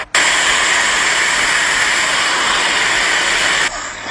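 Loud, steady rushing noise like static, starting abruptly and dropping to a quieter level near the end: an edited-in sound effect under a subscribe-button animation.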